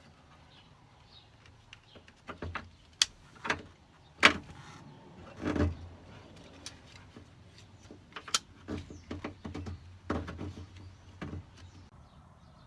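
Scattered clicks and knocks of hands handling the sliding-door lock actuator and its wiring connectors while the wires are hooked back up, the loudest knock about four seconds in.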